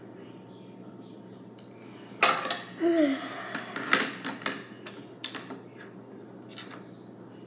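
Small objects being handled and knocked together: a run of sharp knocks and rattles for about three seconds in the middle, with a short falling tone among them.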